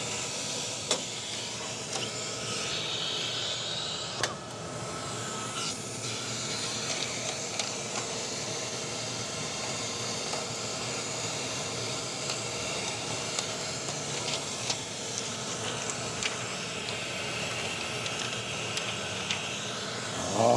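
Steady hum and hiss of running IMAX 70mm film projection equipment, with a few light clicks and taps as film is threaded by hand into the projector.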